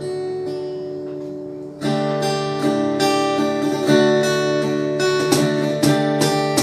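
Acoustic guitar: one chord is strummed and left ringing, then steady rhythmic strumming begins about two seconds in, opening a worship song.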